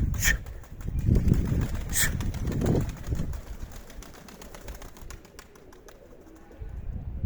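Strong wind buffeting the microphone in gusts, easing off after about three seconds. Two sharp claps cut through it, one near the start and one about two seconds in.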